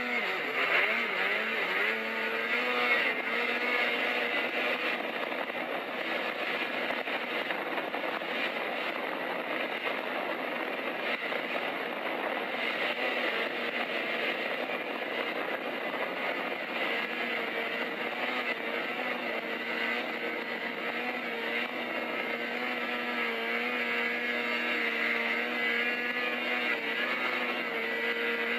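Snowmobile engine running under way, its pitch swinging up and down for the first couple of seconds, then holding nearly steady. It is heard played back through a device's speaker, so it sounds thin with no bass.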